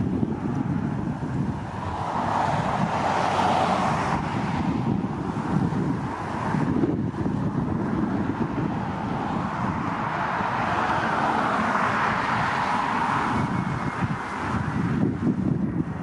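Wind buffeting the microphone with a constant low rumble, over the rushing noise of jet aircraft that swells and fades twice.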